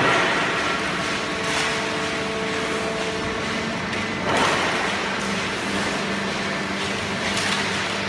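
Automatic horizontal cardboard baler and its feed conveyor running with a steady mechanical hum that shifts lower a little before halfway. Three short bursts of rustling clatter as loose cardboard is handled and thrown onto the conveyor: at the start, about halfway, and near the end.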